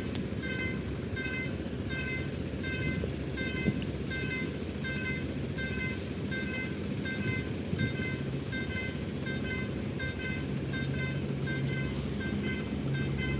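Railway level-crossing warning alarm sounding a steady run of short electronic dings, about two a second. Under it a low rumble grows louder in the last few seconds as the train approaches.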